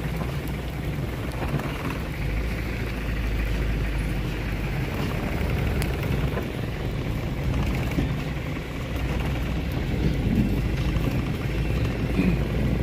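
A vehicle running on the road, a steady engine and road noise, with wind rumbling on the microphone.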